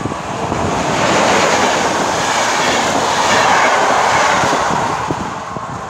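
EP07 electric locomotive and its intercity passenger coaches passing close by at speed, a steady rush of wheel and rail noise with clattering wheels. It is loudest as the train goes by and fades near the end.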